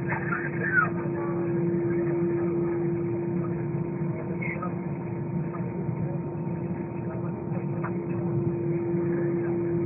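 Steady cabin drone inside an Airbus A320, with a constant hum over a low rushing noise that neither rises nor falls.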